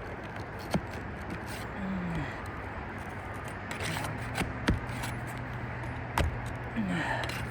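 Asphalt shingles being worked loose by hand on a roof: scattered sharp clicks, knocks and light scrapes. A steady low hum comes in about halfway through.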